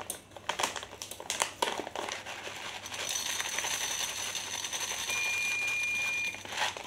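Plastic packet of sunflower seeds rustling and crinkling in the hands, then the seeds pouring in a steady rattling stream into a dry stainless-steel frying pan for about four seconds. A thin high ringing tone sounds for about a second near the end.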